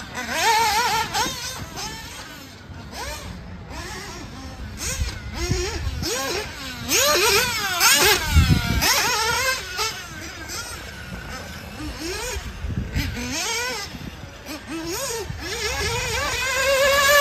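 Engines of radio-controlled 1/8-scale off-road buggies revving as they race around the track, their high-pitched whine repeatedly rising and falling with the throttle.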